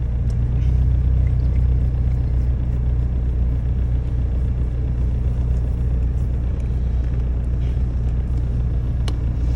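A steady low rumble, with one sharp click near the end.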